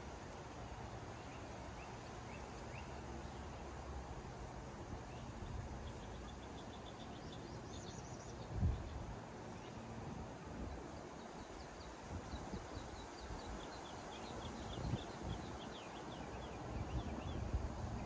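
Outdoor yard ambience: a steady hush with a low rumble beneath, and faint songbirds chirping in quick runs of short high notes on and off. A few brief low bumps stand out, the loudest about halfway through.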